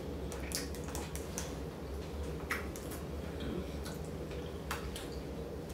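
Quiet eating: scattered faint clicks of a fork on a plate of rice and stew chicken, with a steady low hum underneath.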